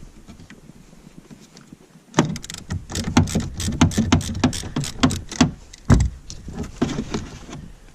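Irregular metallic clicks and clanks of a hand tool loosening and removing the negative cable from a car battery terminal, starting about two seconds in, with one louder knock about six seconds in.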